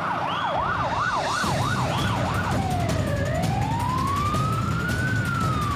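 Emergency vehicle siren on a fast warble that switches about two and a half seconds in to a slow rising-and-falling wail, over a low rumble.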